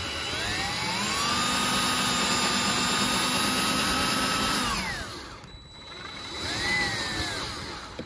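Power drill driving a screw through a metal solar-panel mounting bracket into the roof. The motor spins up, runs steadily for about three seconds and winds down. Near the end comes a second short burst that rises and falls in pitch.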